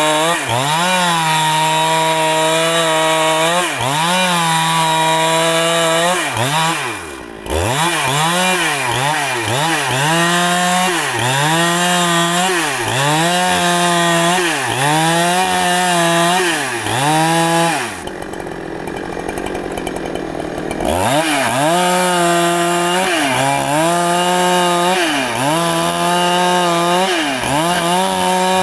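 Two-stroke chainsaw cutting rain tree wood at high revs, its pitch dipping and recovering about once a second as the chain bogs in the cut. The engine drops off briefly about seven seconds in, and again for about three seconds around two-thirds of the way through, before it revs back up.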